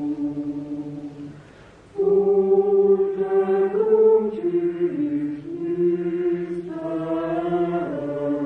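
Church choir chanting: long held notes that step between a few pitches, with a short break about one and a half seconds in before the singing resumes louder.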